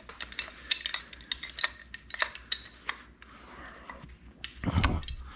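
Scattered small metallic clicks and clinks of hand tools being handled, with a louder clatter shortly before the end.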